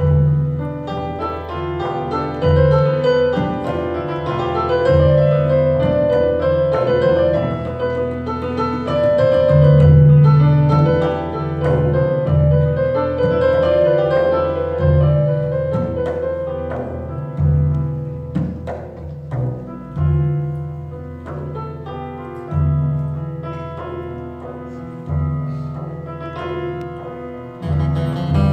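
Live instrumental music from a piano, double bass, oud and frame drum quartet. The piano plays a slow melody over deep double-bass notes that come and go every second or two.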